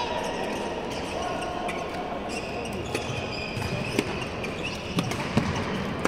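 Badminton rally: sharp racket strikes on the shuttlecock, four in the second half about a second apart, with shoes squeaking on the court floor. Voices chatter in the background.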